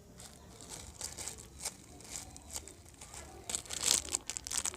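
Plastic packaging crinkling and rustling as a squishy toy in its bag is handled, louder near the end.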